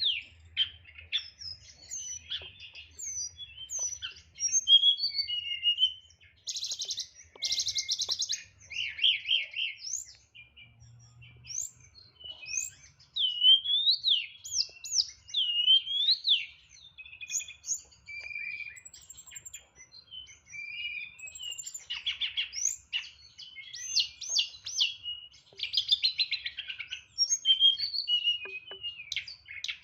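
Tledekan (hill blue flycatcher) in song: a near-continuous run of varied sliding whistles and rapid chattering trills, broken by short pauses. The song is packed with fill-in phrases (isian) in the bird's clipped 'nyeklek' style.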